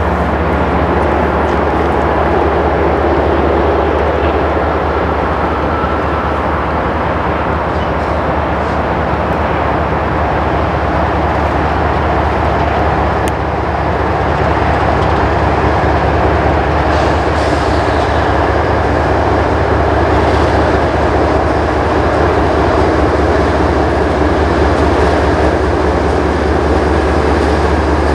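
Three GE ES44 diesel-electric freight locomotives, with V12 engines, approach under power with a steady low diesel rumble and rail noise. The sound grows slightly louder in the second half as they near.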